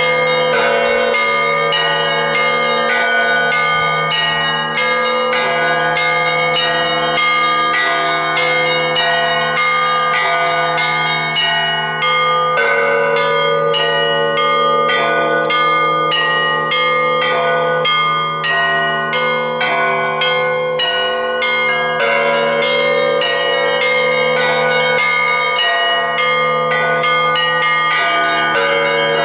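Russian church bells being rung (kolokolny zvon): many bells of different pitches struck in a quick, continuous pattern, each stroke left ringing, over a deep tone that sounds throughout.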